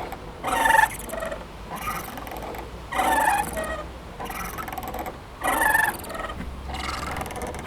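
Playground swing squeaking at its hangers in a regular rhythm, one squeak about every two and a half seconds as it swings back and forth, three times.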